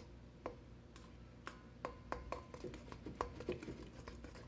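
A fork clinking and scraping against a stainless steel mixing bowl as eggs are beaten into cake mix by hand, in irregular metallic taps that come thicker after about two seconds.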